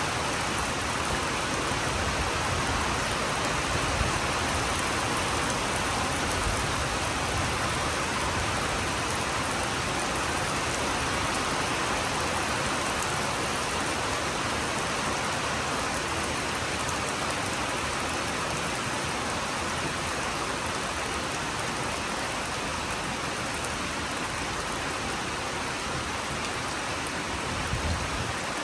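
Steady rain falling, with a brief low rumble near the end.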